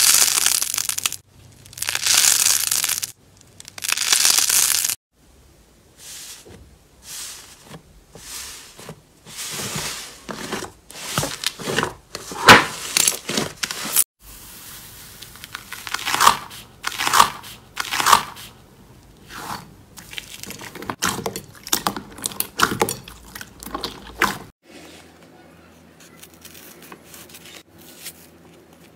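Slime being pressed, squeezed and stretched by hand, making a run of crinkling, crackling and popping sounds. It opens with three loud, hissing squishes of about a second each, followed by many short crackles and pops, and turns quieter near the end.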